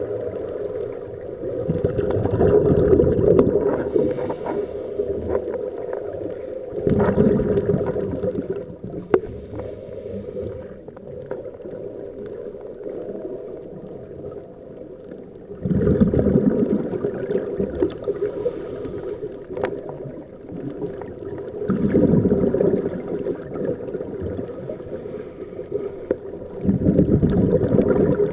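Scuba divers breathing through regulators underwater: exhaled air bubbles out in five louder muffled gurgling swells, each lasting a second or two and several seconds apart, over a steady dull underwater rumble.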